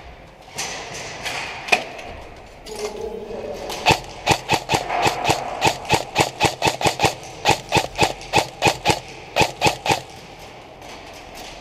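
Airsoft rifle fired semi-automatically in a steady string of about twenty sharp shots, roughly three a second, starting about four seconds in and stopping near the end.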